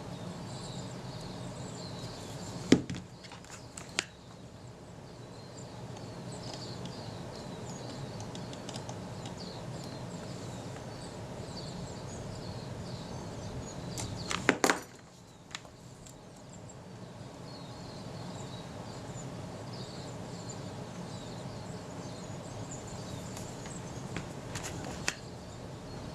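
Quiet workbench handling: a few sharp clicks of small tools and camera parts being moved and adjusted, the loudest a quick cluster of clicks about fourteen seconds in, over a steady low background with faint high chirping.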